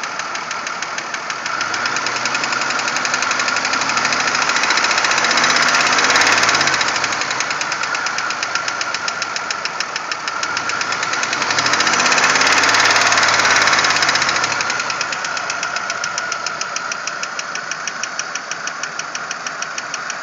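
1997 Pontiac Grand Prix GTP's supercharged 3.8-litre V6 running with a rapid, steady knocking, a weird knocking noise. The engine is revved up and let back down twice, peaking about six and about thirteen seconds in, and the knock carries on through both.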